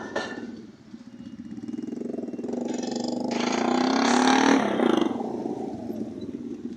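A motorcycle engine passing close by, growing louder to a peak about four seconds in and then falling away, with a steady engine running underneath.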